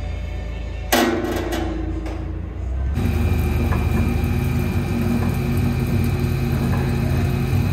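About a second in, a single metal clank rings briefly. From about three seconds on, a Risco RS450 stainless paddle blender's drive runs steadily with a hum: its 5 hp three-phase electric motor turns a worm gearbox and a chain-and-sprocket drive to the twin paddles.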